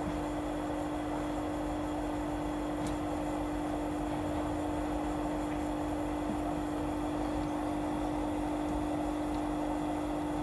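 Orion ecodan HCM10 jet heater running: a steady hum with an even rush of air.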